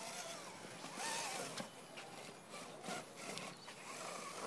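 RC rock crawler clambering over granite, its tyres and chassis scraping and scrabbling on the rock, with a louder stretch of scraping about a second in and a few sharp ticks.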